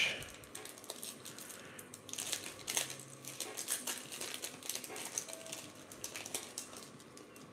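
Foil trading-card pack wrapper crinkling in the hands and being torn open, a run of dry crackles that gets busier about two seconds in.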